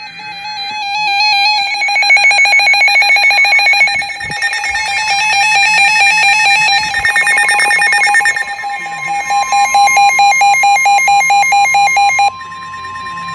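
Several NOAA weather radios sounding their alert alarms: loud, rapidly pulsing electronic beeps on a few steady pitches. About two-thirds of the way through, the steady 1050 Hz weather radio warning tone comes in. Most of the beeping cuts off suddenly near the end, leaving the long tone.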